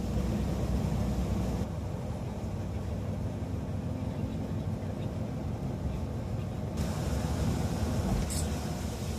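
Steady low rumble of a car on the move. A higher hiss over it drops away about two seconds in and comes back suddenly near the seventh second, and there is a short tick near the end.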